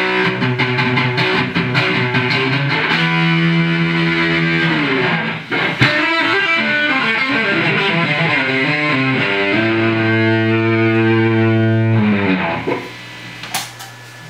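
Electric guitar played through a Giannini True Reverber combo amplifier: quick strummed chords, then long held chords that ring and die away. The playing stops about twelve and a half seconds in.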